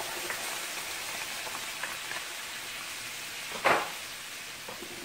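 Butter melting and sizzling in a hot skillet of freshly browned turkey meatballs: a steady hiss that eases slightly toward the end. One short knock about three and a half seconds in.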